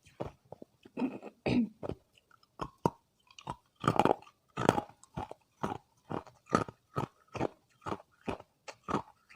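Hard ice being bitten and chewed close to the microphone: a steady run of crisp crunches, about two a second, the loudest around four to five seconds in.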